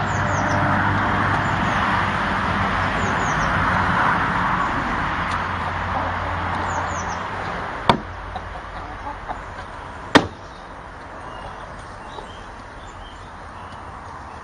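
Two sharp wooden knocks, about two seconds apart, from a wooden treadle chicken feeder as a hen's weight works its treadle plate and lid. Under them is a steady rushing background noise, heavier in the first half, with a few faint high falling chirps.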